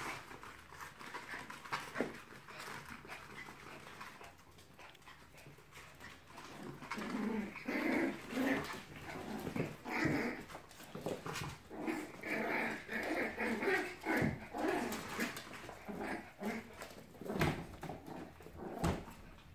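Bichon frise puppies, two months old, at rough play with their mother, giving a run of short growling and whining sounds from about seven seconds in to about sixteen seconds, with scattered clicks and scuffles.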